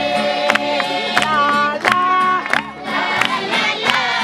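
A crowd of men and women singing and shouting together in a held chorus, with sharp knocks at uneven intervals.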